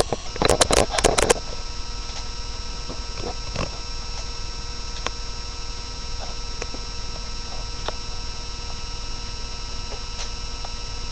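Steady electrical hum with a few fixed whining tones, after a cluster of loud knocks and rustling in the first second and a half; a few faint clicks follow.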